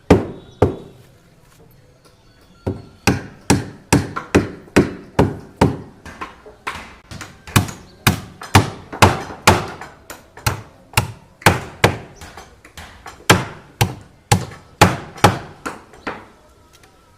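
Hammer blows on a construction site: two strikes at the start, then after a short pause a steady run of sharp blows, about two to three a second, stopping just before the end.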